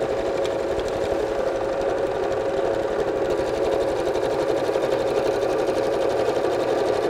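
Janome electric sewing machine running at a steady speed, stitching the binding onto a quilt's edge.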